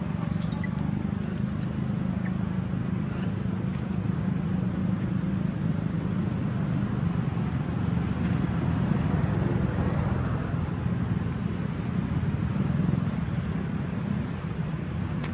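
Steady low rumble of a motor vehicle engine or road traffic, growing a little louder past the middle.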